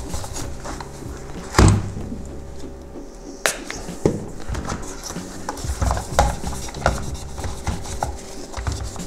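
Paper towel rubbing over the plastic front and display of a Saab climate control panel, with knocks and clicks from the plastic housing being handled and set down; the loudest knock comes about a second and a half in.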